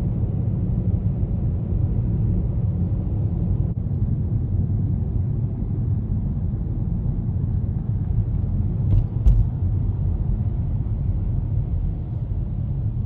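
Steady low rumble of road and engine noise inside a moving car's cabin, with a brief knock about nine seconds in.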